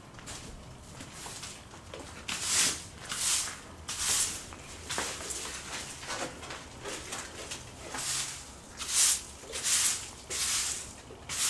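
Dry leaves rustling and crunching in short bursts: a cluster of three around two to four seconds in, then four more near the end.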